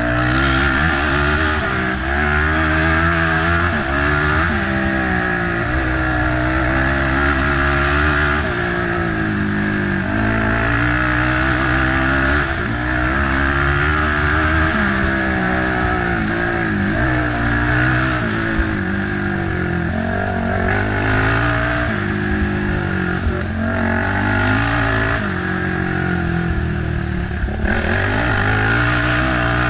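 Race quad's engine under hard riding, its revs climbing and dropping again and again as the throttle is worked and gears change, with constant rushing noise over it.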